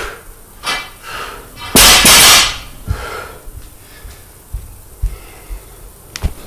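A 30 kg barbell dropped onto the garage floor: one loud crash with the plates rattling, about two seconds in. A few soft thumps follow, then a sharp click near the end.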